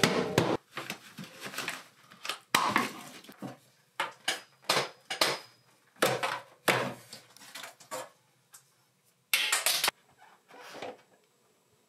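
Handling noises as flexible plastic water line is fed up through a joist bay and past plastic sheeting: irregular knocks, scrapes and crinkling, with a longer rustle about nine seconds in.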